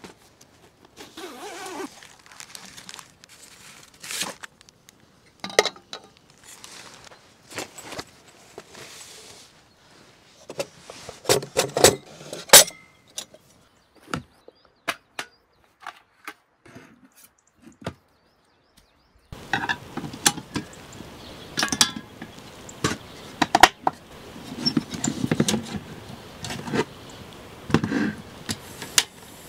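Metal clicks, clinks and knocks of a portable folding camping gas stove being taken out of its case and set up: metal pot-support arms swung out and a gas cartridge fitted.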